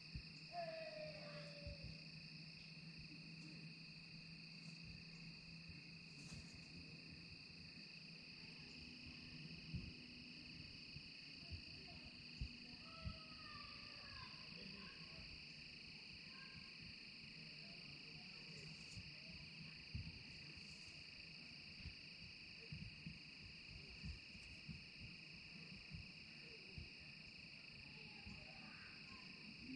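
Faint, steady chorus of crickets: two continuous high trills, one pitched above the other, with scattered soft ticks and a few brief faint calls.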